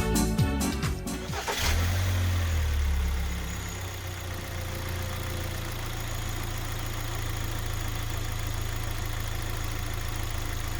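Electronic background music ends in the first second and a half. Then the Kia Sportage's 2.0-litre petrol engine starts and runs at a raised idle, settling down after a second or two to a steady idle.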